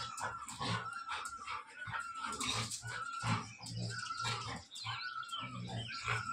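A golden retriever and a Labrador play-fighting, growling and snarling in rapid, repeated short bursts.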